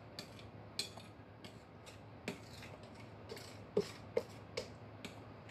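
Wooden spoon stirring a thick mashed-pumpkin mixture in a glass bowl, ticking and knocking against the glass in light, irregular clicks. A few louder knocks come in the second half.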